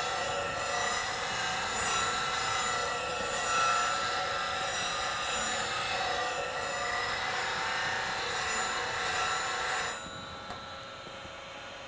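A CBN wheel on a bench grinder grinding the nose of a steel bowl gouge: a steady, noisy grinding rasp with high ringing tones. About ten seconds in the gouge comes off the wheel and the rasp stops, leaving the quieter hum of the grinder still running.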